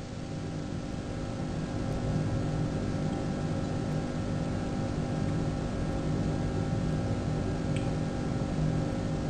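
A car engine idling, heard from a distance as a steady low hum with a few constant tones, getting a little louder about two seconds in as the car creeps forward.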